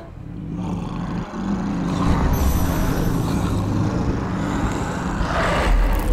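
Sound effects for a TV werewolf-style transformation: a low rumbling drone that swells over the first two seconds. A faint high wavering tone comes in about midway, and there is a brief louder surge near the end.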